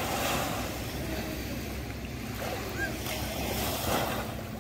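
Small waves washing in and breaking on a sandy shore, with wind rumbling on the microphone.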